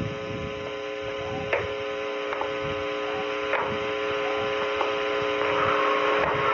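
A steady droning hum of several held tones that slowly grows louder, with a few faint knocks along the way.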